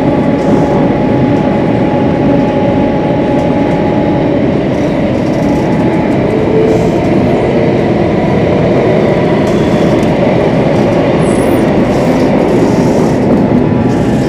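Singapore MRT electric train running through a tunnel, heard from inside the passenger car: a steady, loud rumble of wheels on rails with a constant motor whine above it.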